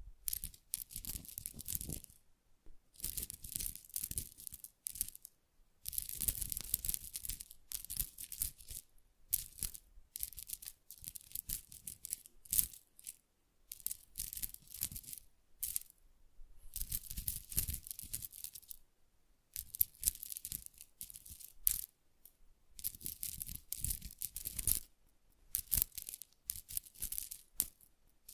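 Close-miked ASMR tactile sounds: crackly scratching and rustling in repeated bursts of a second or two, separated by short pauses.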